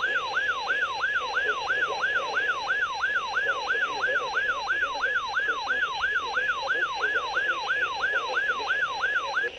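Electronic siren alarm of a weather alert radio sounding for an incoming severe weather alert: a fast warbling tone that sweeps down and back up nearly three times a second, over faint radio hiss. It cuts off at the end.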